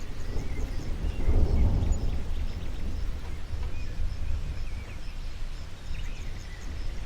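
Outdoor nature ambience: a steady low rumble that swells about a second in, with small birds chirping.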